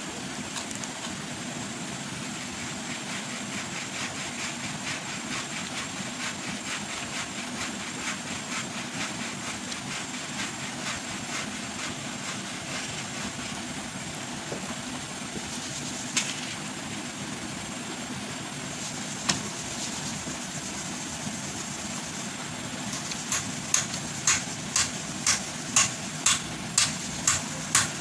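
Raw leafy vegetables handled and torn by hand, making small crackles over a steady background hum. Near the end comes a run of about ten sharp clicks, roughly two a second, as fingers work the sambal in a cobek mortar.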